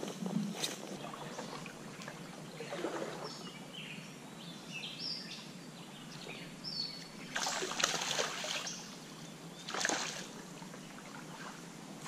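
Shallow trout stream running, a steady rush of moving water, with birds chirping a few times. Two brief rushes of noise come about eight and ten seconds in.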